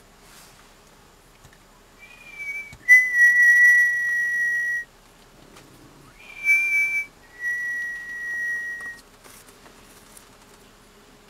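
A person whistling two phrases, each a short higher note followed by a long steady lower note. The first comes about two seconds in and the second, a little shorter, about six and a half seconds in.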